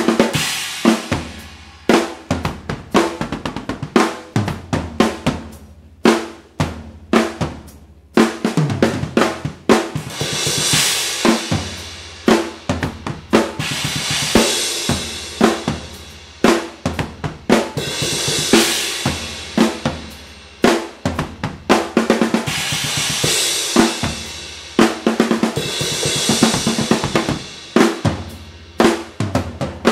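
Soo Custom acoustic drum kit played solo: fast snare and tom fills over bass drum, with cymbal crashes swelling up every few seconds in the second half.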